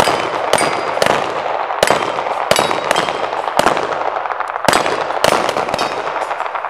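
Handguns firing a rapid, irregular string of shots, about a dozen, each with a short echo, mixed with the clang and ring of bullets hitting steel plate targets and knocking them down.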